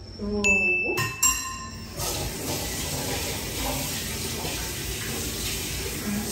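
Kitchen tap running into the sink, a steady hiss of water starting about two seconds in. Before it come a few brief tones and a sharp click.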